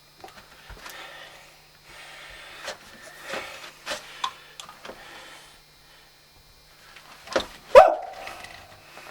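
Coyote-type barks and yips, a string of short cries with the loudest near the end trailing into a falling tone.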